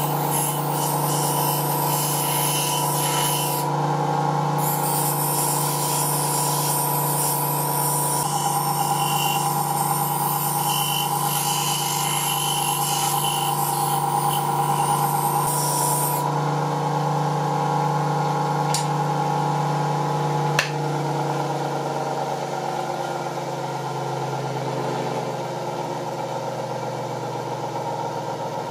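Einhell bench grinder running with its freshly balanced abrasive discs, a steady motor hum. For the first half a steel bar is ground against a wheel, a rasping hiss with a short break a few seconds in. A sharp click comes about two-thirds of the way through, after which the hum slowly weakens.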